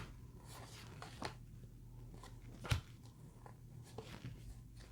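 Trading cards being handled and flipped through: a few faint clicks and taps, the sharpest a little under three seconds in, over a faint steady low hum.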